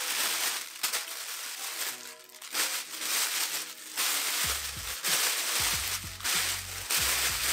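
Thin plastic bag crinkling and rustling as it is handled and wrapped around a laptop battery, over background music whose bass beat comes in about halfway through.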